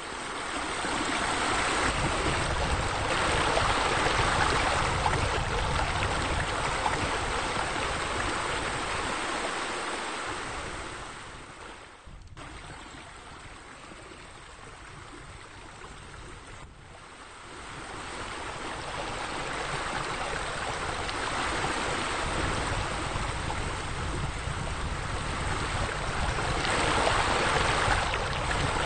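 Steady rush of running, splashing water from a pool's waterfall feature, water spilling in sheets from a raised wall into the pool. It drops quieter for several seconds in the middle, with two brief dips, then swells again.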